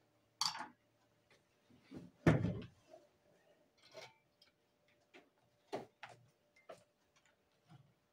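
Scattered knocks and clatter of tools being handled on a wooden workbench, about seven separate knocks, the loudest a heavy thump about two seconds in.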